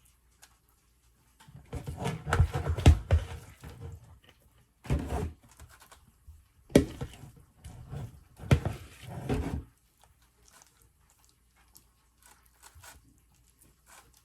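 A spoon scraping and knocking against a bowl and potato skins while mashed potato filling is spooned in, in four bursts with short pauses between.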